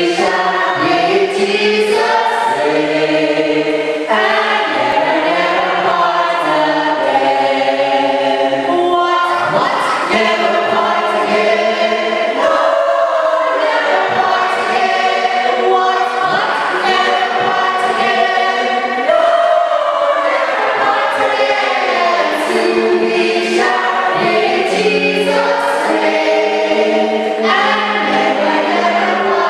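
A choir singing in harmony, several voice parts holding and changing chords together in sustained phrases.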